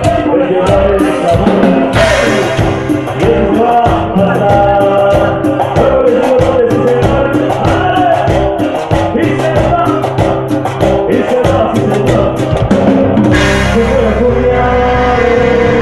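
Live cumbia band playing loud: singing over electric guitar, keyboard and drum kit, with a metal güiro scraped in a quick steady rhythm. About 13 seconds in, a cymbal crash washes over the music.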